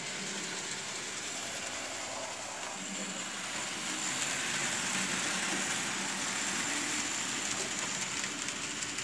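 Model trains running on the layout: a steady rush of small wheels rolling on the rails with a thin high motor whine. It grows slightly louder partway through and cuts off abruptly at the end.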